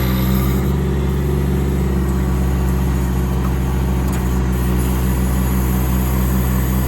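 Diesel engine running steadily at idle, a constant even drone with a slight regular pulse.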